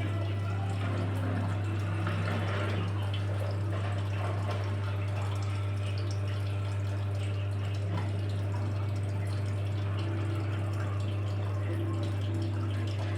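Washing machine running its wash cycle: water sloshing and splashing in the drum over a steady low motor hum.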